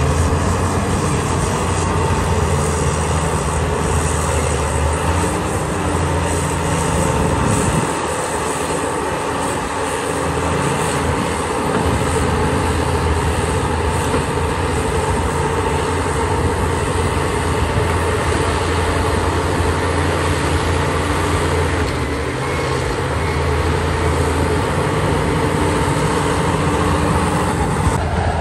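Heavy diesel earthmoving machinery running steadily under load, its engine easing off briefly twice.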